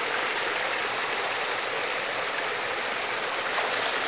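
Steady rushing of flowing water, like a stream or small river, an even hiss with no breaks.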